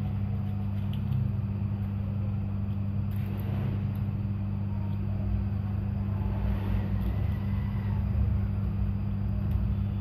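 Steady low hum throughout, with faint rustling of thin card being folded by hand.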